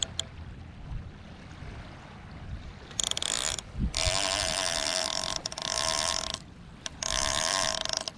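Fishing reel being cranked in four separate bursts, its gears whirring for half a second to a second and a half at a time, with short pauses between.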